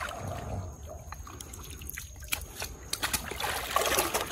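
Water trickling and dribbling with small splashes and a few faint clicks, as hands grope through shallow water for freshwater prawns.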